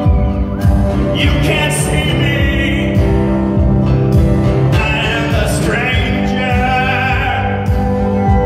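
Live band performance: a male vocalist singing into a handheld microphone over acoustic guitar and band accompaniment, with held, wavering sung notes.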